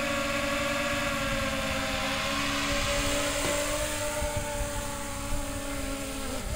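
DJI Phantom 3 Professional quadcopter's propellers buzzing as it hovers low and comes in to land. The pitch drops near the end as the motors slow.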